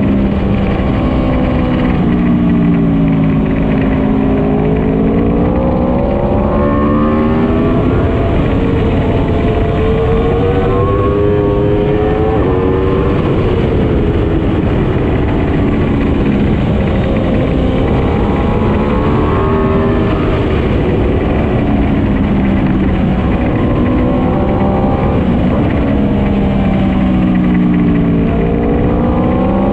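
Motorcycle engine heard from on board at speed, its revs rising and falling several times as it accelerates and eases off, over heavy wind rush on the microphone.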